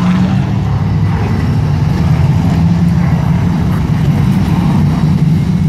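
Engines of a pack of short-track racing trucks running together as the field goes by, a loud steady drone.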